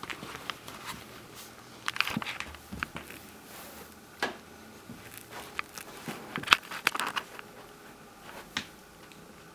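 A cat coughing in short hacking bouts: clusters of sharp bursts around two seconds in and again around six to seven seconds in, with single ones between.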